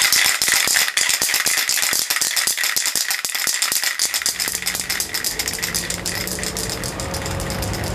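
Aerosol spray-paint can being shaken, its mixing ball rattling rapidly. About halfway through, a low rumble of street traffic comes in underneath and the rattling becomes less distinct.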